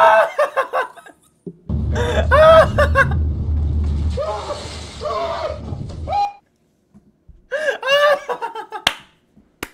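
A man laughing hard in bursts near the start and again near the end. In between comes a stretch of low rumble with voices, and a rush of water splashing down about four to five seconds in.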